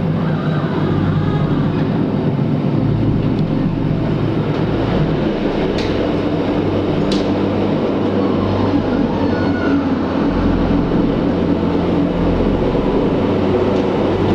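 Rhaetian Railway narrow-gauge train running with a steady low hum, with two sharp clicks about six and seven seconds in.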